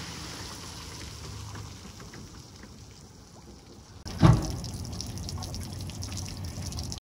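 Water draining off a freshly hauled-out boat's outboard lower unit, trickling and dripping onto wet pavement. A sudden thump about four seconds in is the loudest sound.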